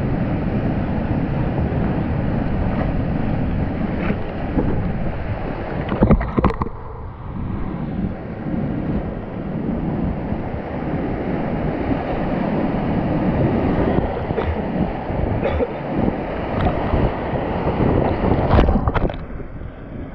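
Heavy whitewater rapids rushing around a kayak, heard close up from a helmet camera with water and wind buffeting the microphone. Two louder sharp hits of water or paddle come about six seconds in and near the end.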